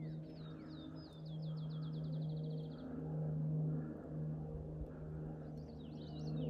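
Songbirds singing, one giving a fast trill of quickly repeated notes lasting about two and a half seconds, with more chirping song near the end, over a steady low hum.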